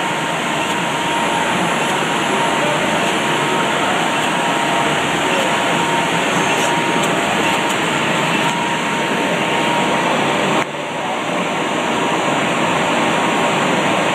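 Index ABC CNC lathe running with coolant spraying against the inside of its window: a dense, steady hiss with a thin steady whine. The level drops suddenly about ten seconds in and builds back up.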